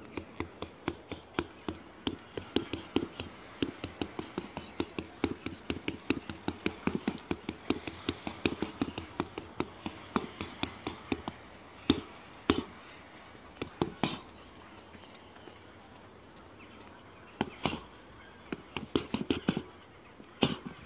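Fists striking a stack of car tyres used as a punching bag: a fast flurry of sharp hits, about four or five a second, then a few single harder blows, a pause, and more quick combinations near the end.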